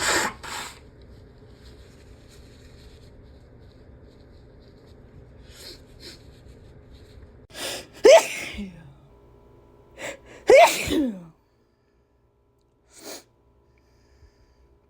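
Two sneezes from a person with a cold, about two and a half seconds apart: each is a quick intake of breath, then a sharp burst with a falling voiced cry. A short noisy breath sound follows about two seconds after the second one.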